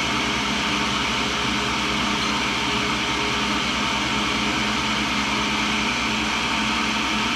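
Tool and cutter grinder running steadily just after start-up: the motor and grinding-wheel spindle give a constant hum with a fine, even low throb. To the owner it sounds good.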